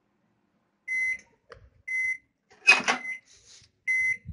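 Microwave oven's end-of-cycle beeps as its timer runs out: three short, high beeps about a second apart. Between the second and third beep comes a loud clack, the door latch being opened.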